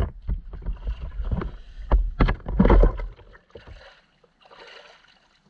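Water splashing and slapping against a small RC boat, with irregular knocks and low rumble on the microphone; no motor whine is heard. It dies away after about three and a half seconds.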